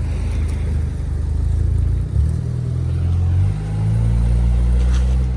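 Car engine running under way, a steady low hum whose pitch shifts twice, about two seconds in and again about a second and a half later, as the car speeds up.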